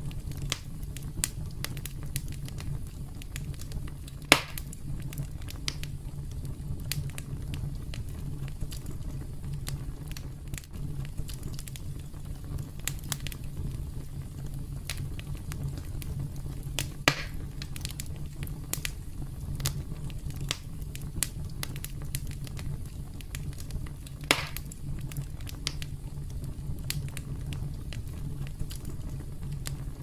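Wood campfire crackling: a steady low rumble of flames under frequent small snaps, with three louder pops spread through.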